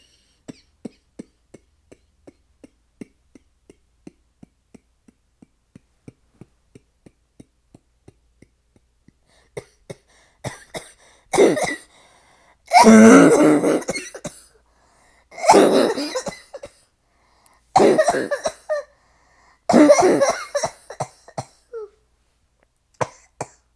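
Faint, even ticks, about two a second, for the first nine seconds or so. Then a woman coughs in a run of about five fits, the longest and loudest near the middle: a heavy cough from a bad cold.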